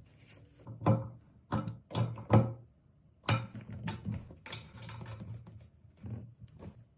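Hard plastic parts of a toilet cistern's float and fill valve clicking and knocking as they are handled, with a few sharp knocks in the first two and a half seconds and then a stretch of rattling from about three to six seconds in.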